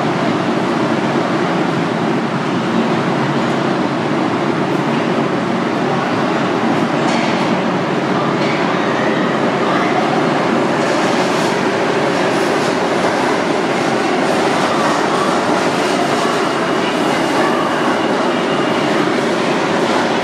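R46 subway train pulling into an underground station: steady noise of steel wheels on the rails, with clicking over rail joints from about seven seconds in and a thin high squeal for a few seconds near the end.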